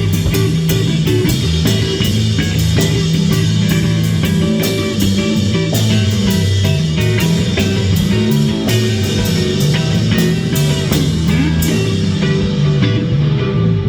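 Live instrumental psychedelic rock jam: drum kit keeping a steady beat under electric guitar, bass guitar and synth. The bright cymbal hits drop away near the end.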